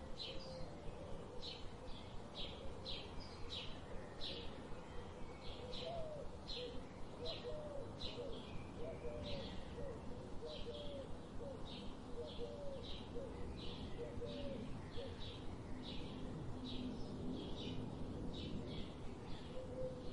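Birds singing: short high chirps repeat about twice a second throughout, joined in the middle stretch by a run of low, curving call notes.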